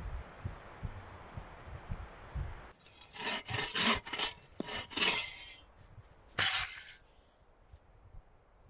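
Hand saw cutting into the top of a wooden post to make a notch for a rafter. A quick run of about six rasping strokes is followed, after a short pause, by one longer stroke. Wind rumbles on the microphone before the sawing starts.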